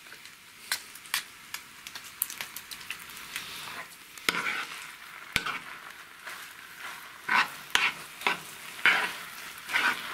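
A spoon stirring and scraping through minced pork belly, liver, onion and oat groats frying in a coated frying pan, over a light sizzle. Sharp clicks of the spoon against the pan come throughout, and the scraping strokes grow louder and come about once or twice a second in the second half.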